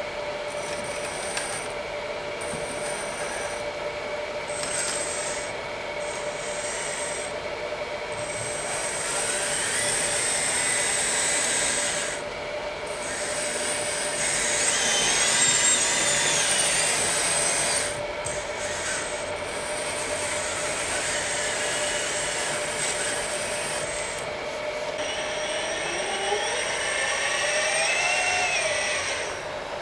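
Hydraulic pump and valves of a Kabolite K350-200 RC hydraulic excavator running with a steady whine. Its pitch sags and rises several times as the hydraulics take load, loudest near the middle.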